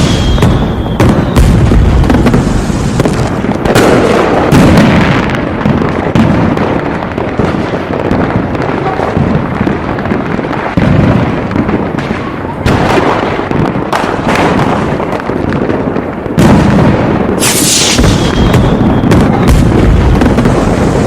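Aerial fireworks going off in a dense, near-continuous barrage of booms and crackling bursts, with a fresh loud volley about three-quarters of the way through.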